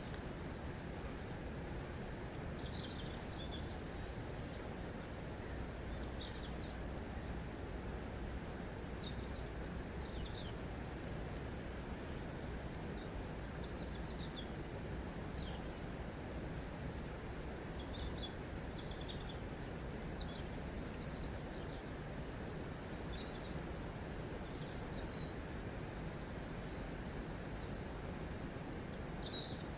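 Steady rush of running water, with small birds chirping briefly and often throughout.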